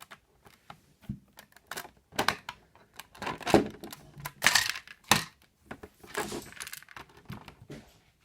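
Plastic LEGO pieces clicking and clattering as they are handled and pressed together, in irregular bursts of sharp clicks, loudest a little past the middle.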